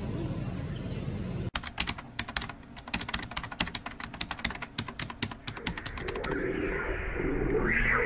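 Keyboard-typing sound effect: a rapid run of crisp clicks, many a second. It starts abruptly about a second and a half in and stops about six seconds in, where outdoor background sound takes over.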